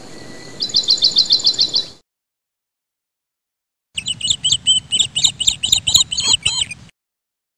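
Bird chirping sound effects in two separate clips. First comes a quick run of repeated high chirps that cuts off about two seconds in. After two seconds of dead silence, a second clip of varied, busier twittering runs for about three seconds and stops abruptly.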